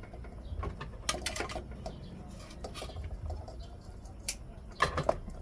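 Kitchen utensils clinking and scraping against dishes and cookware: a few sharp clinks about a second in and the loudest ones near the end.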